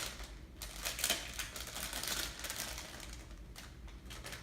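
Plastic packaging crinkling and crackling in a series of quick clicks as a squishy toy is pulled out of it, busiest in the first couple of seconds.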